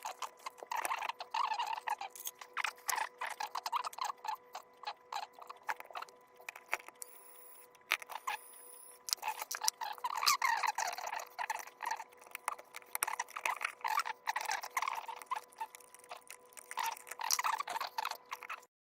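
Irregular small clicks, taps and scrapes of hands working on a wall socket with tools and fittings, quieter for a few seconds near the middle.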